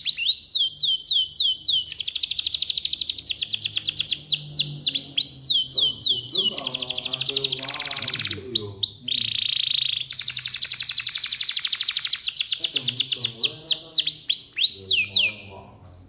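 Domestic canary singing a long, vigorous song of rapid trilled rolls and quick downward-sweeping notes, with a brief held whistle about nine seconds in. The song stops just before the end.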